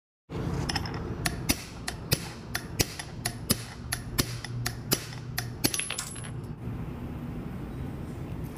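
A run of sharp, irregular metallic clinks and taps, like tools and metal parts knocking together, for about six seconds, then they stop. A low steady hum runs underneath.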